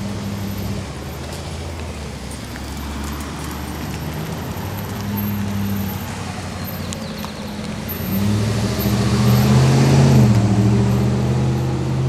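Road traffic with motor vehicle engines running, and one vehicle passing close, loudest about ten seconds in.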